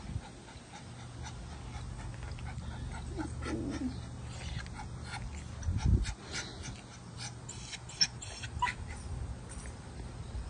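A small long-haired dog panting in quick short puffs, with a brief whimper about three and a half seconds in. A low thump near six seconds in.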